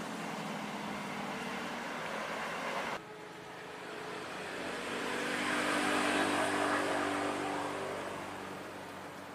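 Passing-train rumble cuts off abruptly about three seconds in. Then a diesel-electric passenger locomotive approaches with its engine running and the wheels rumbling on the rails; it grows loudest around six seconds in and then fades.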